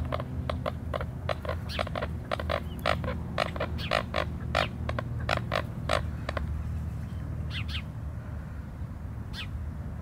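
A bird calling in a quick run of short, sharp notes, about three a second, that stops about six and a half seconds in, followed by a couple of single calls. A low steady hum runs underneath.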